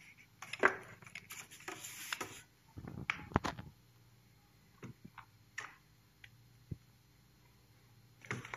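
Handling noise from a cordless drill/driver and its hard plastic carry case: rustling and plastic knocks for the first couple of seconds, a few sharper clicks about three seconds in, then scattered single ticks.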